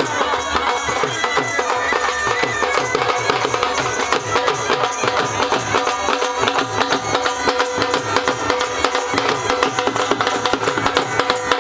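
Punjabi been baja band playing: bagpipes sound a held drone under a folk melody, over a fast, steady drum beat.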